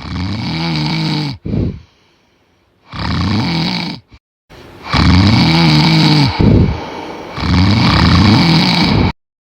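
A man snoring loudly in long, pitched, wavering snores: one, a brief extra one right after it, one about three seconds in, then two longer and louder ones through the second half.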